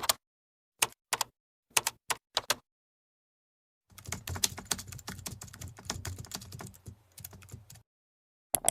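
Sharp clicks: several single clicks at irregular spacing over the first two and a half seconds, then a rapid run of clicking over a low rumble for about four seconds, and one more click near the end.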